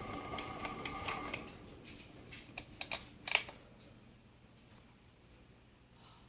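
52-inch SMC HDC52 ceiling fan running on high with a noisy motor whine, which the owner puts down to the bearings or the light kit. The whine dies away about a second in, and a few sharp clicks and rattles follow before only a faint hum is left.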